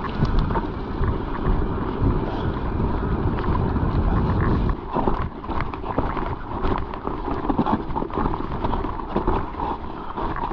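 Wind buffeting the microphone over the running noise of a mountain bike on a trail, with frequent short knocks and rattles from the bike.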